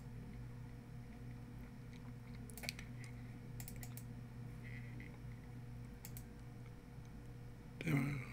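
A few sparse computer mouse clicks over a steady low electrical hum, with a brief louder sound near the end.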